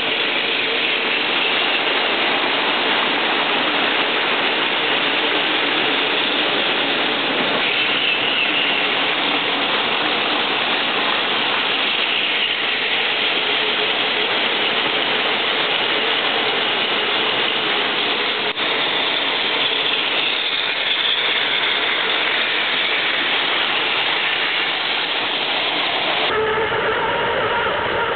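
Several battery-powered Plarail toy trains running together on plastic track: a steady whirring of small electric motors and gearboxes with the rattle of plastic wheels on the rails. About two seconds before the end it changes to a closer whine with distinct steady tones.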